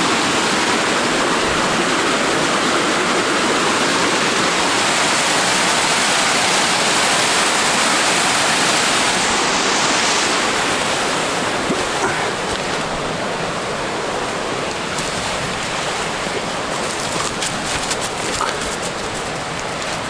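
Small woodland waterfall rushing steadily down a rocky gully, a loud even roar of falling water that drops a little in level about halfway through. A few light crackles near the end.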